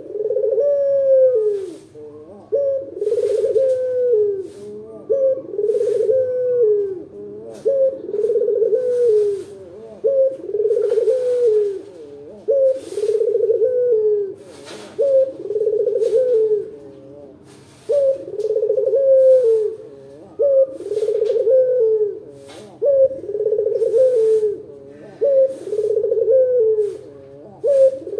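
Collared dove of the Indonesian 'puter lokal' type cooing over and over, a rolling 'kuk-geru' phrase about a second long repeated with short gaps, a strong-voiced bird in full song of the kind used as a lure to set other doves calling.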